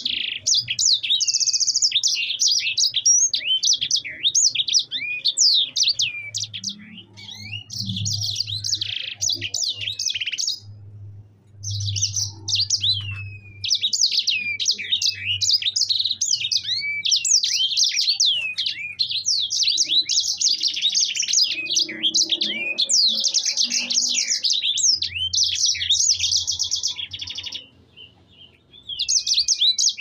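A sanger, a small seedeater finch, singing a long, fast rolling song of high chirps and trills. The song breaks off briefly about eleven seconds in and again near the end, then starts up again.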